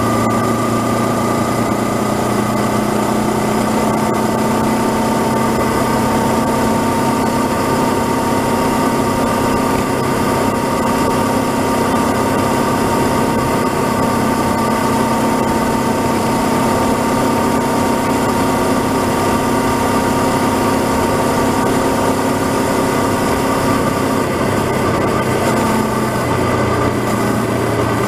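Honda CB500X's parallel-twin engine running steadily at cruising speed, with wind and road noise over it. The note holds even throughout, shifting only slightly near the end.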